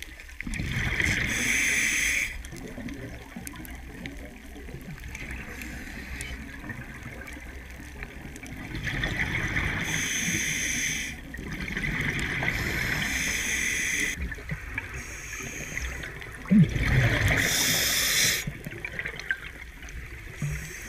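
Scuba regulator breathing underwater: several bursts of exhaled air bubbling out of the regulator, each lasting one to two seconds, with quieter stretches between them while the diver breathes in.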